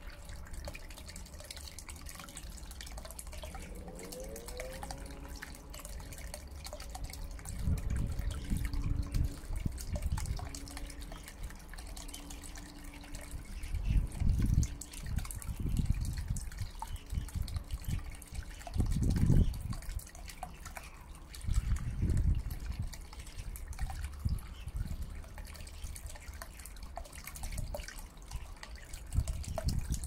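Small submersible fountain pump spraying a jet of water that splashes and drips back into a shallow metal basin, a steady mix of splashing and trickling. Several louder low rumbles come and go over it.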